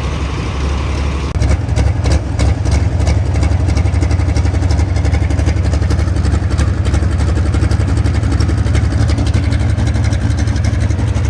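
A vehicle engine running with a steady low rumble. It gets louder about a second and a half in, with a run of clicks over the next few seconds.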